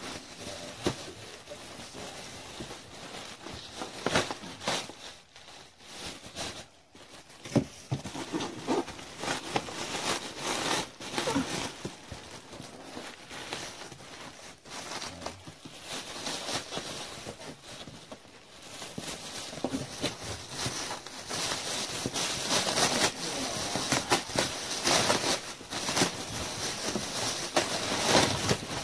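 Plastic film and foam packing rustling and crinkling as hands dig through a packing box, in irregular crackly strokes that grow busier in the last third.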